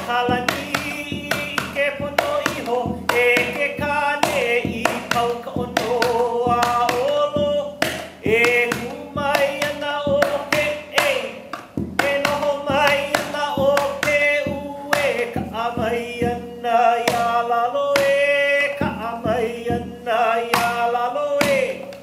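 Hawaiian hula chant: one voice holding and sliding between long notes over a steady beat struck on an ipu heke double-gourd drum.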